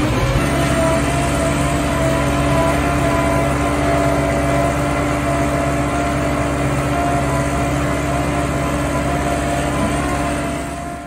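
Self-loading feed mixer wagon running under load, its milling cutter tearing silage off the clamp face and feeding it into the mixer. A loud, steady machine drone with several constant hum tones.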